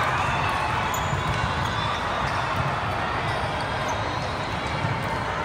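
Steady din of a large indoor sports hall, with volleyballs bouncing and smacking on the courts amid a general hubbub.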